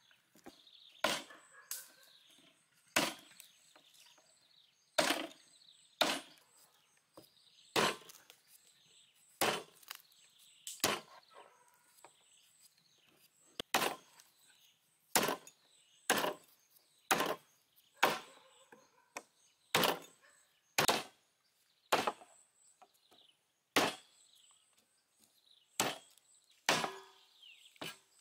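Meat cleaver chopping through raw beef rib bones on a wooden chopping block: a run of sharp chops at roughly one a second, unevenly spaced, some coming in quick pairs.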